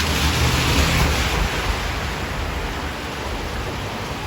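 Steady hiss of falling rain, with a stronger low rumble in the first second and a half that then eases.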